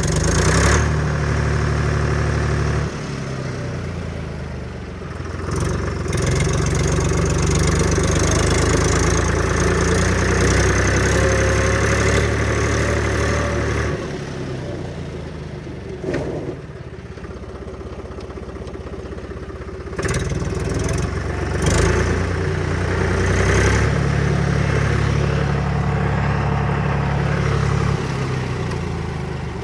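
Deutz 6260 tractor's diesel engine running as the tractor is driven, its speed and load shifting several times: it eases off about 3 s in, picks up again near 6 s, drops back around 14 s and comes up again near 20 s.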